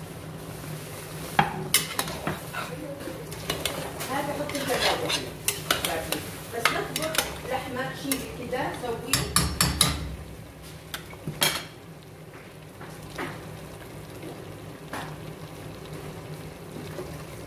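A spoon stirring in a stainless steel pressure cooker pot, clinking and knocking against the metal as potato pieces go in with chicken in a tomato sauce, over a steady sizzle. The knocks come thick for the first ten seconds or so, then thin out, leaving mostly the sizzle.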